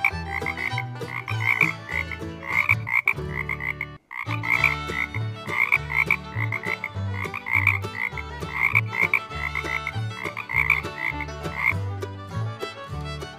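Frogs croaking in quick runs of short, repeated calls, with a brief break about four seconds in.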